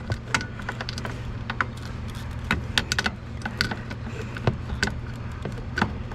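Irregular metallic clicks and clinks of hand tools, a socket wrench and vice grips, being worked on a stuck bolt, over a steady low hum.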